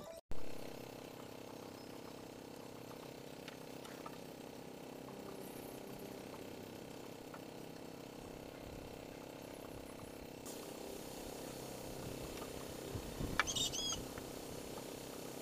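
Faint steady background hum, with a few light knocks near the end as wooden bed-frame boards are handled and fitted together.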